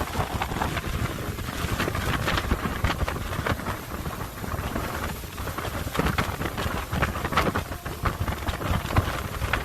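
Hurricane wind gusting hard against the microphone, with rain. A rumbling, uneven roar full of crackling spatters.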